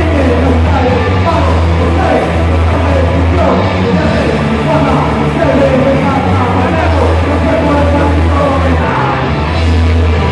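Loud punk/heavy rock band playing, with a strong bass line under dense guitar, and at times vocals.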